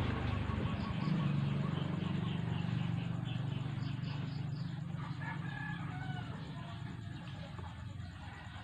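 A rooster crowing in the background about five seconds in, over a steady low hum.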